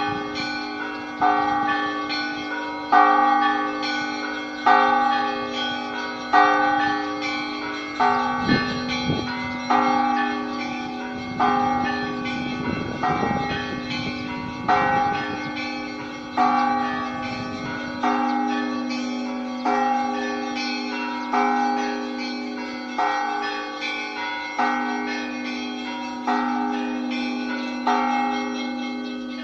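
Church bells pealing for a service: bells of different pitches struck in turn, about one stroke every second and a half or so, each ringing on, over the steady hum of a deeper bell.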